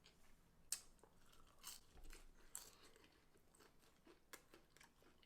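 Faint chewing of a fried chicken tender, with a few soft crunches scattered through.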